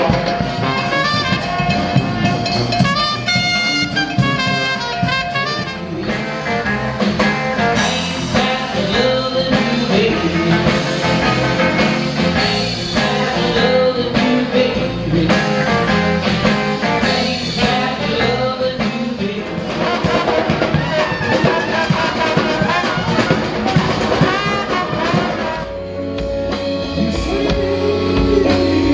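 Jazz played on brass instruments, in the manner of a street brass band. Near the end it switches abruptly to a different piece.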